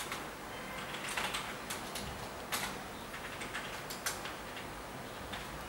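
Irregular light taps and clicks of hands handling a pair of leather sneakers over a shoebox, over a steady hiss.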